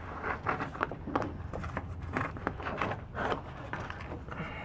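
A printed paper instrument-panel template being slid and pressed into place by hand, rustling and scraping against the fiberglass in a quick run of irregular strokes.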